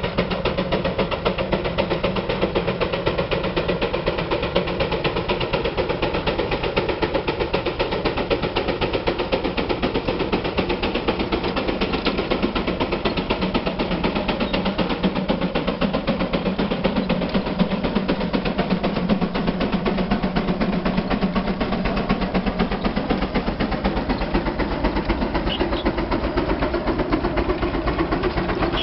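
Frick steam traction engine working under the load of an eight-bottom plow: a fast, even chuffing beat from its exhaust that holds steady.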